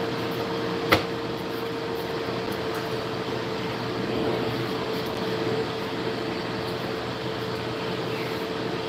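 Steady whirring hum of a kitchen appliance fan with one steady tone in it, and a single sharp clack about a second in.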